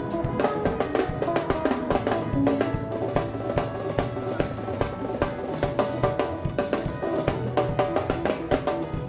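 Upbeat church worship music driven by a drum kit playing a fast, even beat, with sustained instrument notes over it.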